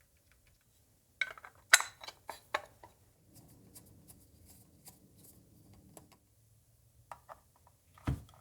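Small hard objects being handled on a tabletop: a quick run of sharp clicks and clinks, then faint rustling, then a few light clicks near the end.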